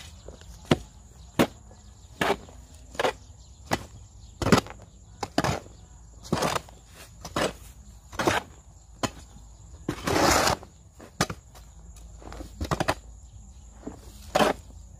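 A garden tool striking and scraping through a pile of damp compost ingredients as they are turned and mixed, roughly one stroke a second, with a longer scrape about ten seconds in.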